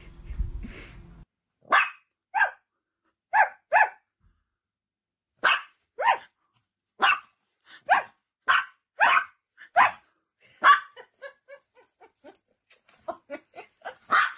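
A dog barking in a series of short, sharp single barks, each about half a second to a second apart. Near the end the barks turn softer and shorter.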